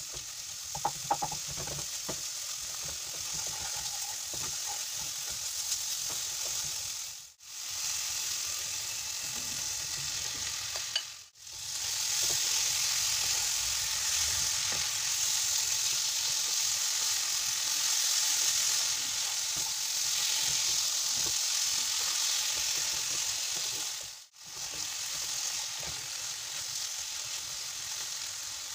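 Masala and okra sizzling as they fry in a nonstick kadai, stirred and scraped with a wooden spatula. The steady sizzle drops out briefly three times and is louder from about twelve seconds in.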